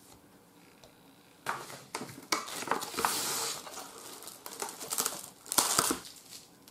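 Plastic cling wrap crinkling as it is stretched over a glass bowl and pressed around the rim, in a run of crackly bursts starting about a second and a half in, loudest near the middle and again near the end.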